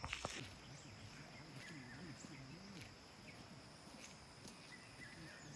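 Faint rainforest ambience: a steady high insect drone with a few short, faint bird chirps, and a faint low wavering sound in the first couple of seconds.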